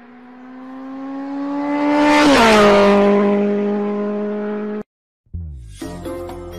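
A car passing by: its engine note grows louder, drops in pitch as it passes at its loudest about two seconds in, then fades. It cuts off suddenly near the end, and after a moment's silence light music with jingles begins.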